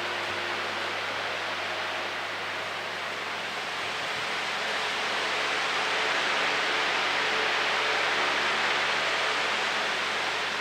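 Sonnenkönig electric fan running, a steady rush of air with a faint low motor hum underneath. The rush swells louder for a few seconds midway, then eases back.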